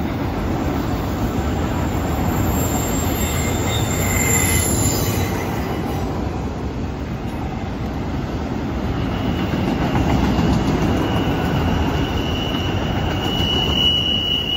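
Freight train's autorack cars rolling past on a curve: a steady rumble of steel wheels on rail, with thin high wheel squeals, one about three seconds in and another building from about nine seconds to its loudest near the end.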